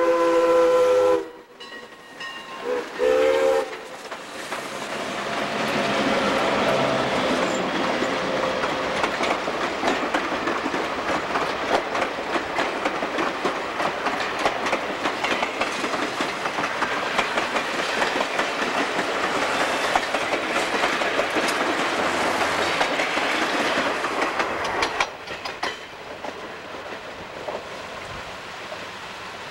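A steam locomotive's whistle sounds several notes at once, stops about a second in, and gives one more short blast; then the locomotive and its passenger coaches pass close by, with a steady rush and the clickety-clack of wheels on rail joints. Near the end the sound drops suddenly to a quieter rumble.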